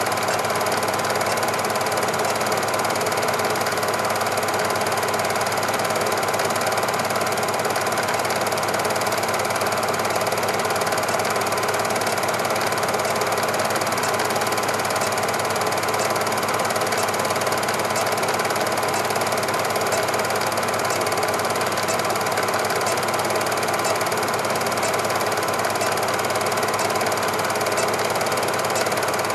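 Cine film projector running: a steady, fast mechanical clatter that does not change when the picture cuts.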